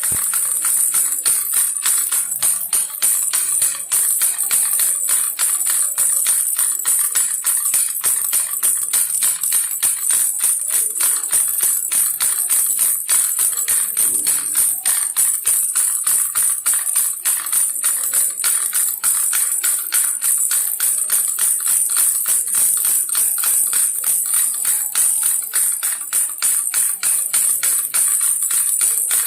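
Baby rattle shaken rapidly and without pause: a continuous, fast, bright jingling rattle.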